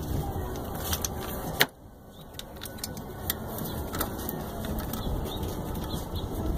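Scattered light clicks of a hand tool against engine parts over a steady low background rumble. A sharp click about one and a half seconds in is followed by a brief dip in the rumble.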